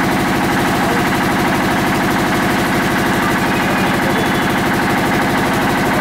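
A motor-driven machine running steadily with a fast, even pulsing clatter.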